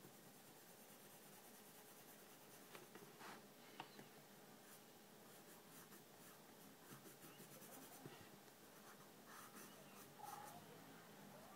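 Faint scratching of a pencil drawing on sketchbook paper, in short strokes that come in clusters, one around three seconds in and another from about eight seconds in.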